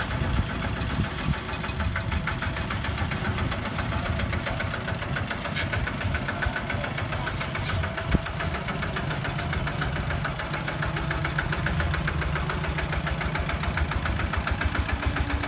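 Kubota walking tractor's single-cylinder diesel engine running steadily as the tractor is driven into a gravel pile, its exhaust beating out fast, even pulses. A single sharp knock sounds about eight seconds in.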